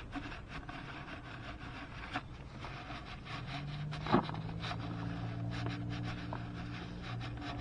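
Dry paper towel rubbing and wiping over the bare metal gasket surface of a GY6 scooter engine's crankcase, with small scrapes and taps. A low steady hum comes in about halfway through.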